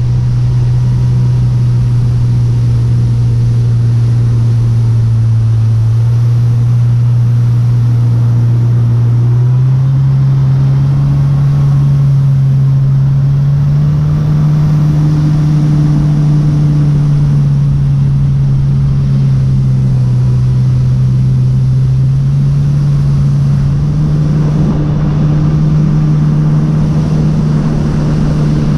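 Jet ski engine running at speed, heard from on board. Its low drone steps up in pitch several times and drops back as the throttle changes, over a steady rush of water spray and wind.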